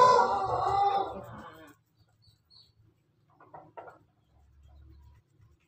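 A rooster's long crow, already under way, ends a little under two seconds in. A few faint taps of chickens pecking at a feed pan follow.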